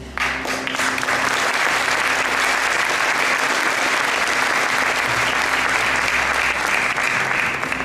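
Audience applauding, starting suddenly and holding steady, easing off near the end.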